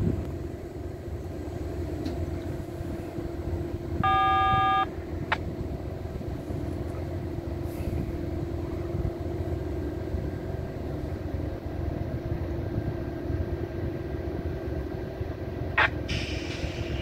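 Diesel locomotives of a stopped Amtrak passenger train idling with a steady low rumble and hum. About four seconds in, a multi-chime horn sounds once, a short toot under a second long.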